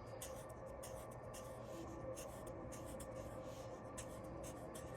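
Faint scratching of a drawing tool on paper in short, irregular strokes, over a low steady hum.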